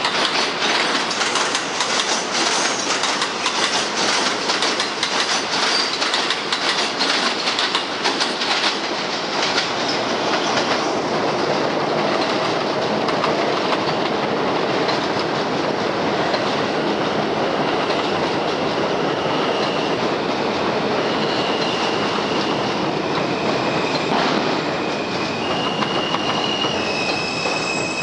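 R160B subway cars on an elevated line: wheels clattering over the rail joints, then a steadier rumble with short high whining tones that step in pitch over the last ten seconds or so as a train brakes into the station.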